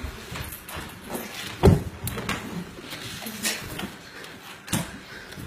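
Scuffling with several sudden knocks and thumps, the loudest about a second and a half in, as a large dog is lifted and struggles against being carried to the bath.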